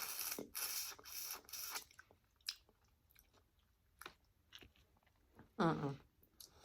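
Close-miked mouth sounds of sucking on a cooked prawn head: four loud slurps in quick succession, then scattered wet chewing clicks, and a short hummed 'mm' near the end.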